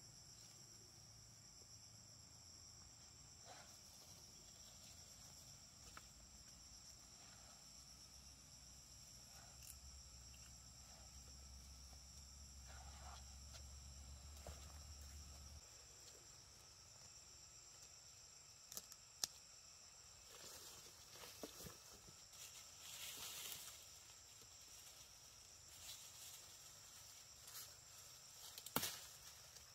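Faint, steady high-pitched chirring of insects. A low hum stops about halfway through, and a few sharp clicks and rustles come in the second half, the loudest click near the end.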